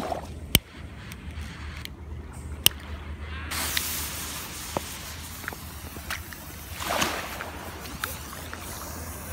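Two sharp clicks of a lighter being struck, then, about three and a half seconds in, a handheld firework catches and hisses as it sprays sparks, swelling again near the end. Small waves lap underneath.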